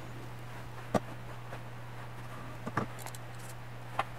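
A few short, light clicks and taps of a marker pen and steel square being handled on a 10 mm aluminium plate while it is marked out, over a steady low hum.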